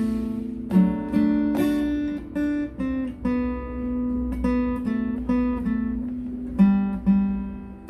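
Guitar picking a slow single-note melody in G, a beginner's obbligato lead line, with notes plucked a fraction of a second to about a second apart and some held and left to ring.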